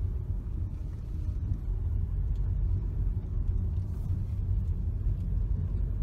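Low, steady rumble of a car driving slowly, heard from inside the cabin.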